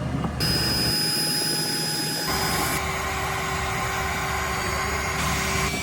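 Steady machine-like whirring noise with a thin high whine, changing abruptly in character a few times.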